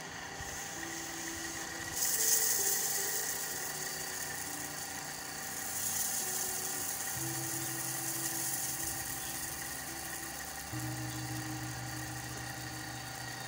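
Centre pivot irrigation rig running: a steady whine, with water hissing from its sprinkler from about two seconds in.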